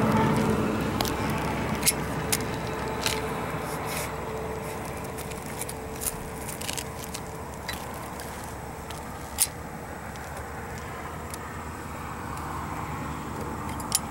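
A steady rumble that is loudest at the start and eases off over the first few seconds, with scattered sharp clicks and taps throughout.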